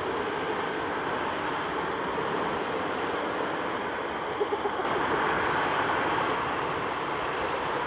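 Steady jet engine noise from a Boeing 747-8F freighter taxiing on its four GEnx-2B turbofans at low thrust. It grows a little louder about five seconds in, just after a few brief clicks.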